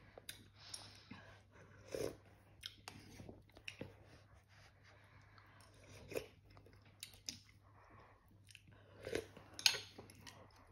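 A person eating instant noodle soup close to the microphone: slurping broth from a spoon and chewing in irregular bursts, with a few sharp clicks, the loudest near the end.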